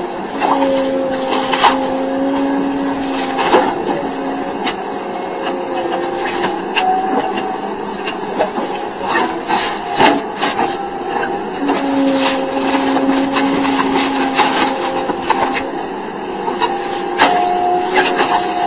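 Tree-felling machine at work: a steady machine whine that steps up and down in pitch, with repeated sharp knocks and cracks of wood.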